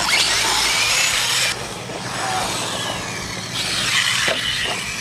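Radio-controlled monster truck running in a freestyle run, its motor whining up and down in pitch. Loud for the first second and a half, quieter in the middle, picking up again about three and a half seconds in.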